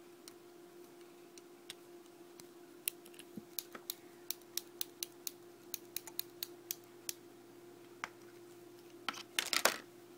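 Rotring Tikky mechanical pencils handled on a desk, giving a run of light, sharp clicks about two a second, then a quick cluster of clicks near the end, over a faint steady hum.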